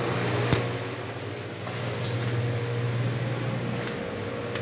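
Steady low mechanical hum under a light hiss, with one sharp click about half a second in.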